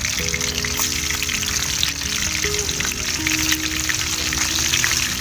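Hot oil sizzling and crackling steadily as food fries in a pan.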